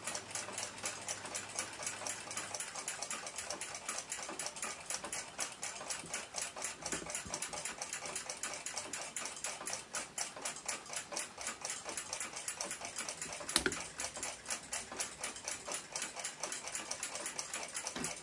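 Rapid, even mechanical ticking, with one sharp click of metal about three-quarters of the way through.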